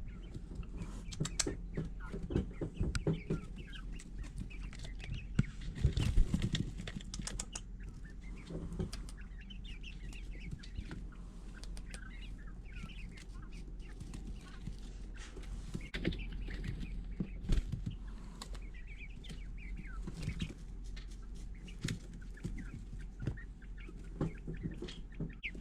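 Young Cream Legbar chicks and Tuxedo quail chicks in a brooder, peeping and chirping in many short, scattered calls, with scattered clicks and rustling among them.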